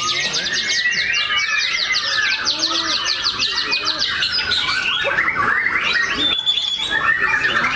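White-rumped shama (murai batu) singing: a fast run of many rapidly repeated high notes, then varied sweeping phrases with a held high whistle near the end.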